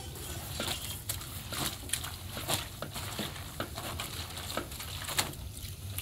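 Wet clothes being kneaded and squeezed by hand in a metal basin of water, giving irregular sloshes and splashes, about one or two a second.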